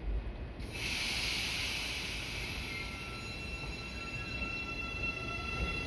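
9000 series electric train: a sudden hiss comes in about a second in, followed by several steady high whining tones from the train's traction equipment over a low rumble.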